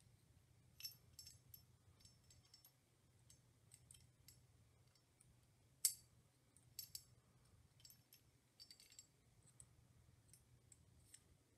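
Faint metal clicks and light clinks of an AR-15 bolt carrier group being handled as the firing pin is slid into the carrier, with one sharper click about halfway through.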